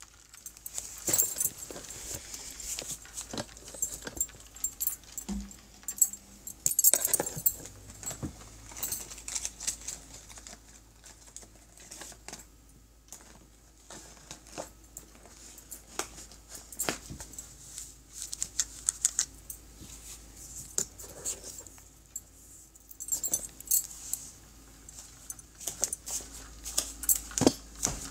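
Handling noise of a phone carried against the body: rubbing and scraping with many irregular sharp clicks and clinks, busiest about a second in, again around six to eight seconds, and near the end.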